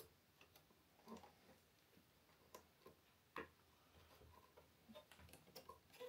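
Near silence with a few faint, irregular clicks and taps: small plastic cable connectors being handled and pushed into their sockets on an all-in-one PC's motherboard.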